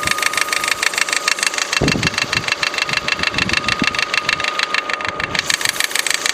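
Opel Astra H's 1.6-litre Z16XEP petrol engine idling with a fast, even, diesel-like clatter. The timing-belt tensioner pulley, not replaced at the belt change, vibrates and strikes the engine block.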